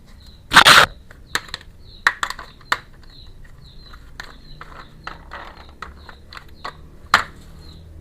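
Small plastic toy kitchen pieces and packaging being handled: a loud rustle about half a second in, then a few sharp clicks and taps, and one more sharp click near the end.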